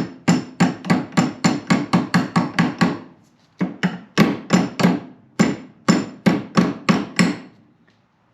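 Body hammer tapping a part back into a 1996 Ford F250's door hinge during a hinge pin and bushing job: quick sharp metal strikes about four a second, a brief pause about three seconds in, then another run of strikes that stops near the end.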